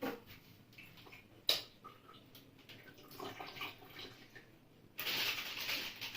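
Tap water pouring into a bowl: a steady rush that starts suddenly about five seconds in, after a quiet stretch with a sharp knock about a second and a half in.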